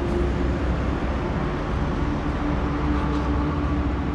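Steady low rumble of motor-vehicle noise with a faint steady hum, no sudden events.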